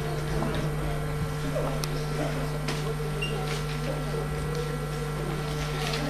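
Steady electrical hum from the hall's sound system, with faint scuffs and rustling of performers moving on the stage floor and a sharp click just under two seconds in.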